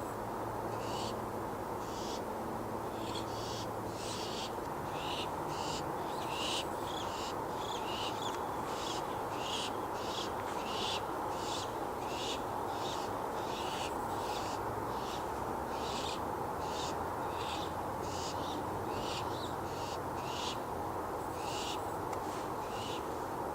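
Barn owls giving short hissing screeches over and over, roughly one to two a second, several voices overlapping, over a steady rushing background noise.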